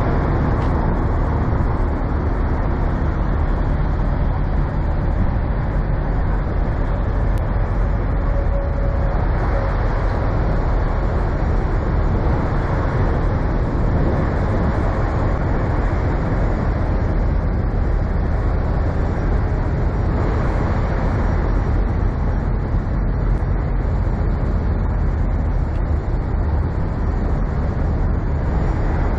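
Heavy diesel truck engine idling steadily: a continuous low rumble.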